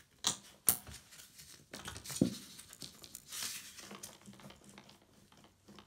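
Steel selector rod and shifter linkage joints clicking and knocking as the rod is slipped onto the shifter and worked into place, with a few sharp metal clicks in the first couple of seconds and the rustle of a gloved hand.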